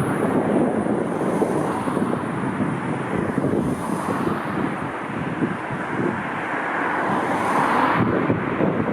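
Airliner engine noise mixed with strong wind buffeting the microphone, with a thin high whine over it; the engine noise swells about seven seconds in.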